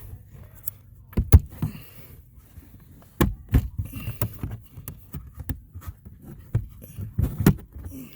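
Sharp plastic clicks and knocks from an interior trim panel of a 2014 Nissan Pathfinder being pried at by hand, its retaining clips popping loose. The loudest knocks come about a second in, around three seconds in and near the end.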